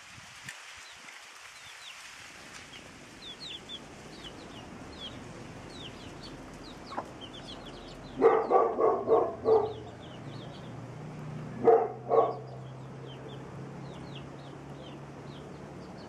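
Chicks peeping: many short, high cheeps throughout. Louder, lower calls come in a quick run of about six a little past the middle, and twice more about three seconds later.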